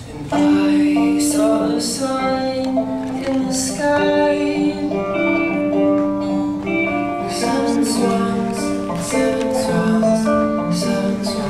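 A band playing a slow folk song live: plucked strings under held notes, with singing.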